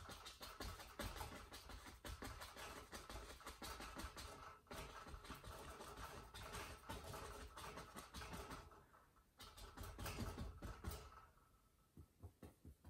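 Bristle brush dabbing and scraping wet oil paint onto a stretched canvas while painting a pine tree: a fast run of faint scratchy taps that breaks off briefly, returns, then thins out and stops near the end.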